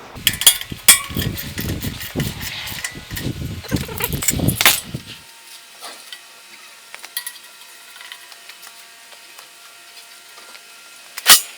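Metal parts and hand tools clinking and knocking as a bandsaw is worked on. A busy stretch of handling lasts about five seconds, then come a few light ticks and one sharp knock near the end.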